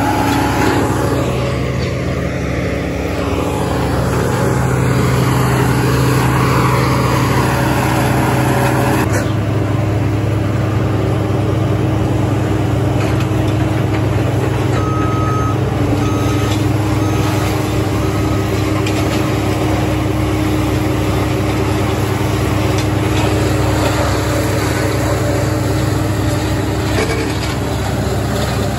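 Heavy diesel land-clearing machine running steadily under load, its engine note shifting about nine seconds in. Partway through, a short series of four or five evenly spaced beeps sounds over it.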